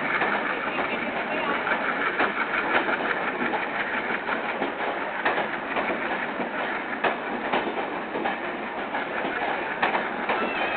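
Passenger coaches of a departing train rolling past close by: a steady running noise from the wheels on the rails, with irregular sharp clicks as the wheels cross rail joints.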